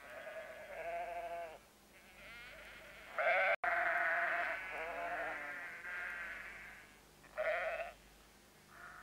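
Sheep bleating: about seven quavering bleats one after another, at a higher and a lower pitch from more than one animal, the loudest and longest a little past the middle.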